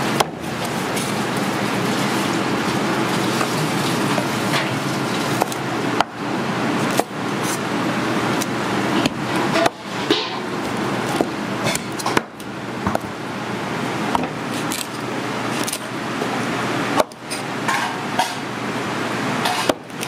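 A cleaver cutting through a whole flounder on a wooden cutting board, with occasional knocks of the blade on the board, over a loud, steady commercial-kitchen roar.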